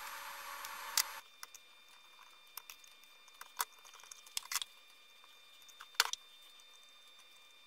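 Handling noise: scattered small clicks and knocks as parts and wires are fitted into a sheet-metal control box, with the sharpest knocks about a second in and about six seconds in. A steady hiss stops abruptly about a second in.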